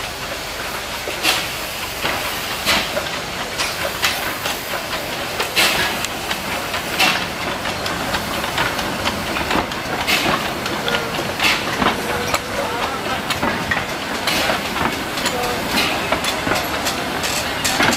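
Small steam tank locomotive pulling carriages past at low speed, puffing with a sharp chuff about every second and a half over a steady hiss of steam, with wheels clicking over the rail joints.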